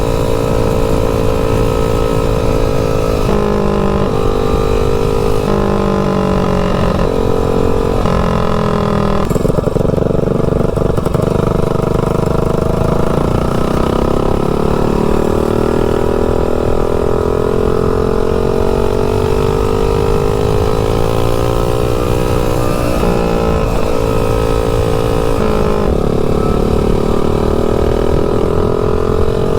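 Tillotson 225cc single-cylinder four-stroke mini bike engine with an open header pipe running under load while riding. The throttle is rolled off and back on several times in the first ten seconds, then held, with the engine note slowly rising and falling.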